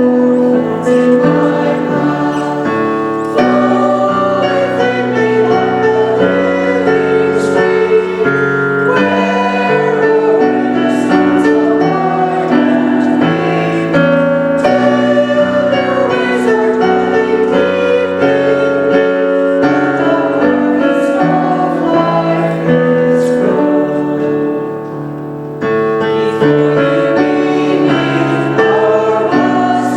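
Church choir singing a hymn with piano accompaniment, with a short quieter pause between phrases near the end.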